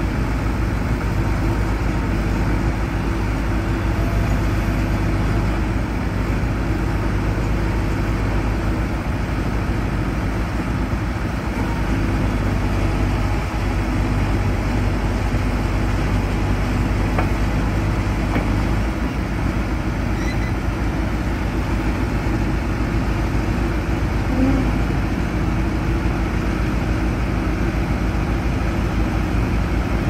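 John Deere backhoe loader's diesel engine running steadily at a low, even speed.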